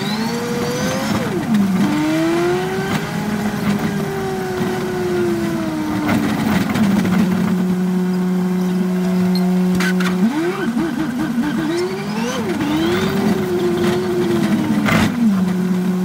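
Engine of a Yutong ZK6831HGA city bus, heard from the driver's seat while driving. Its pitch rises and falls with the throttle, dropping sharply at gear changes, and it holds one steady note for a few seconds in the middle and again near the end. There is a single knock a little before the end.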